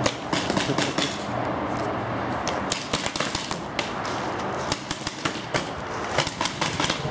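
Paintball markers firing: irregular bursts of sharp pops, several shots in quick succession, with short gaps between the bursts.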